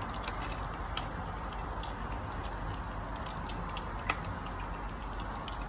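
Browned sausage sizzling faintly in the pan: a steady hiss with scattered small crackles, and one sharper click about four seconds in.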